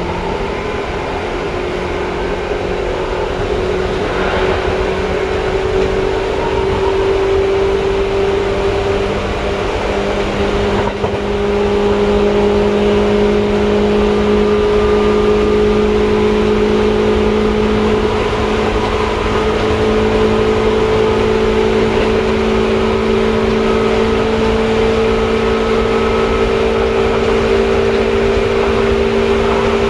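Seibu 2000 series electric train heard from inside the passenger car: the motor hum climbs slowly in pitch as the train picks up speed, then levels off, over steady wheel and rail rumble. There is a brief break in the sound about eleven seconds in.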